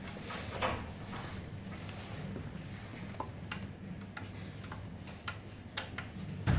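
Irregular light clicks and taps from hands-on work on an electric scooter's disc brake, over a steady low hum.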